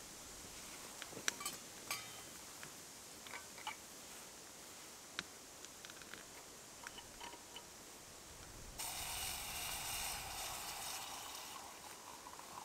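Small clicks and ticks of a metal vacuum flask being handled and its cap unscrewed, then liquid poured from the flask into a metal pot, a sudden splashing rush that starts about nine seconds in and lasts about three seconds before tailing off.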